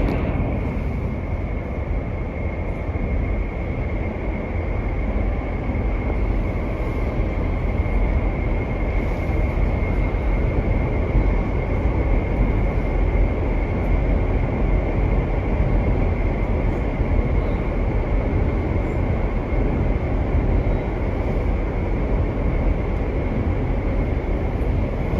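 Cabin noise of a GTX-A express train running between stations: a steady low rumble with a thin, steady high whine.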